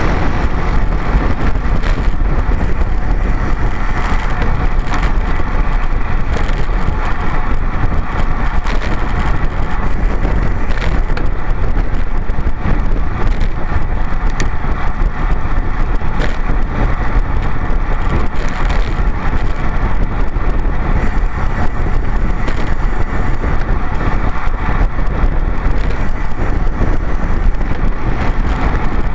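Steady wind rush on the microphone of a camera riding on a road bike at race speed, with road rumble and a few faint clicks.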